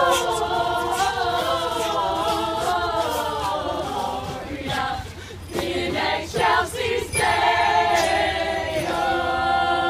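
A group of carolers singing together unaccompanied, holding long chords; the singing thins out for a couple of seconds in the middle, then comes back on another long held chord.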